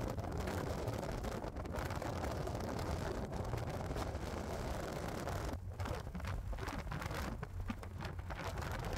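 Thunderstorm noise: a steady low rumble with no sharp cracks, easing a little about six seconds in.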